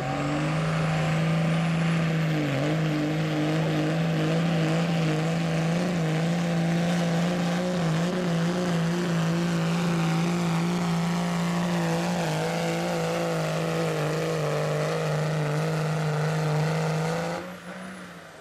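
Diesel pickup truck engine held at high, steady revs under full load as it pulls a weight-transfer sled, with a faint high whistle that climbs over the first couple of seconds and then holds. Near the end the engine note drops away as the pull ends.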